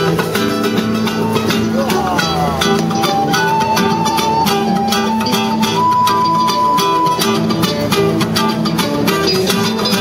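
Acoustic music led by a strummed guitar keeping a steady rhythm, with a melody line held above it.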